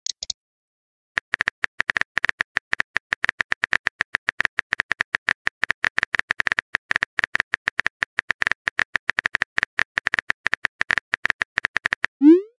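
Simulated phone keyboard clicks from a texting-story app: a rapid, irregular stream of taps as a text message is typed out, several a second. Near the end the clicks stop and a short rising swoosh plays as the message is sent.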